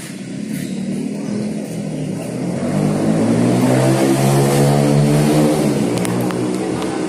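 A motor vehicle's engine passing close by: it grows louder and climbs in pitch as it approaches, then drops in pitch and fades as it moves off. A couple of sharp clicks come near the end.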